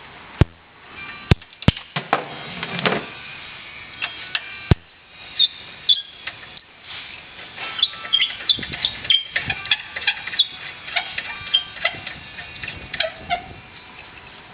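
Hand tools clicking and clinking against metal parts of a car's rear brake, irregular light ticks with a few sharp clicks in the first few seconds.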